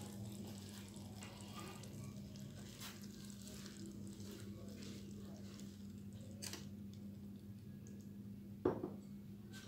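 Faint crackling of hot oil in a wok of just-cooked aloo keema, with the flame just turned off, over a steady low hum. One sharper knock comes near the end.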